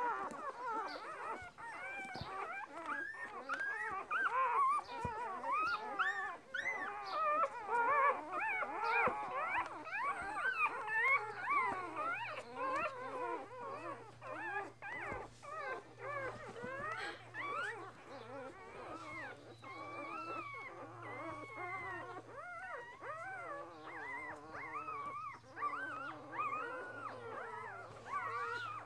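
Newborn Border Collie puppies, two days old, squeaking and whimpering, several at once, with many short, high, wavering cries overlapping without a break.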